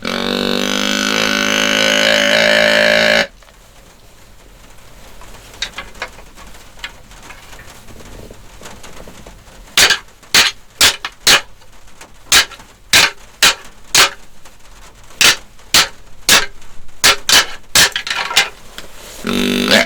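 A deer call sounds one long, steady, reedy note for about three seconds, and again briefly at the end. In between, from about ten seconds in, come a string of sharp clacks at roughly two a second.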